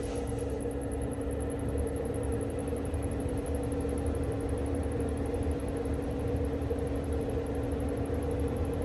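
Steady electric hum of a roof vent fan running, with two steady tones over a low rumble and a faint, fast, high ticking.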